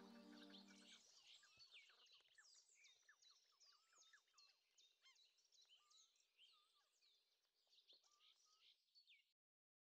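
Faint birdsong: many small birds chirping and twittering, slowly fading and cutting off near the end. A soft music note ends about a second in.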